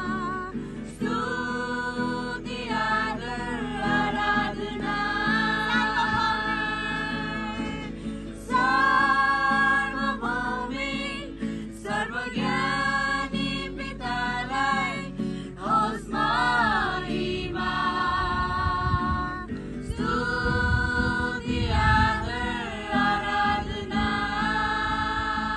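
A group of young voices singing a Christian song together, accompanied by a strummed acoustic guitar.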